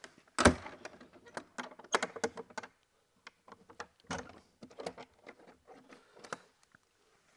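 Irregular clicks, knocks and rustles of hiking gear being handled while packing up inside a small hut, with a sharp knock about half a second in. The handling stops a little before the end.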